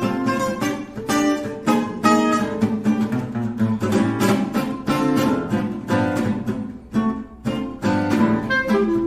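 Background music led by a rapidly plucked acoustic guitar.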